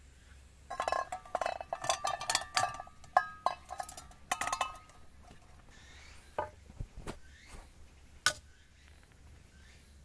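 Metal cookware clinking and rattling as it is handled for about four seconds, the strikes ringing briefly; then three more single clinks, spaced out.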